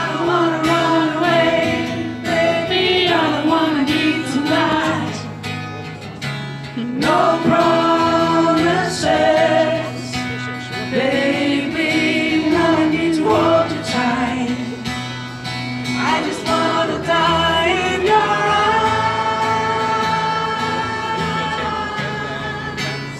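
Male singer performing a song live through a microphone, accompanied by guitar, the voice holding one long note near the end.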